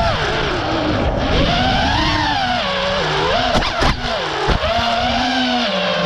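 A 6S freestyle FPV quadcopter's brushless motors and props whining, the pitch sweeping up and down with the throttle. Around the middle come a few quick throttle chops, with sharp drops and bursts.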